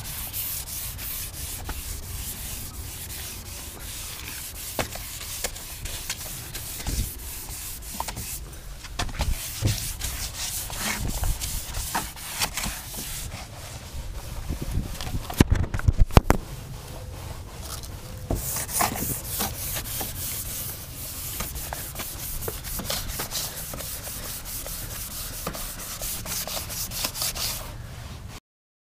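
Sandpaper on a hand sanding block scrubbed back and forth over the painted steel body panels of a BMW E36, a run of quick scratchy strokes, with a few loud thumps about halfway through.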